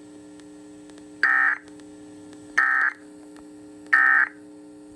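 Emergency Alert System end-of-message code: three short, evenly spaced bursts of the two-tone digital data signal, about a second and a half apart, marking the end of the alert. A steady low hum runs underneath.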